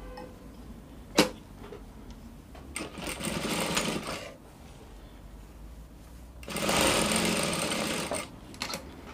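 Industrial lockstitch sewing machine stitching a sleeve hem in two short runs of about a second and a half each, the second louder. A sharp click comes about a second in.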